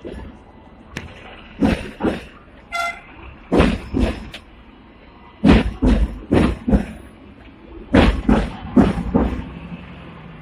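Hong Kong double-decker tram running, heard from inside: its wheels knock and clatter over rail joints and crossings in uneven pairs of thumps over a steady rumble. A short horn toot sounds about three seconds in.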